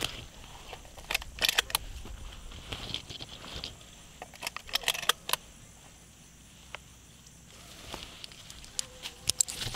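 Sporadic light rustling and clicking from movement among dry cornstalks, coming in short clusters with quiet outdoor air between.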